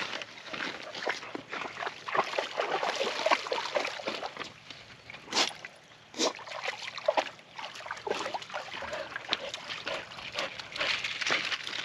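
Shallow creek water splashing and trickling in irregular little sloshes, with two sharper splashes about midway.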